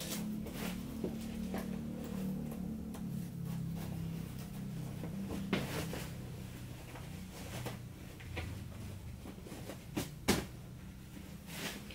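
Handling noise of a person dressing and putting on a belt: rustling with scattered clicks and knocks, two sharper ones about ten seconds in, over a low steady hum.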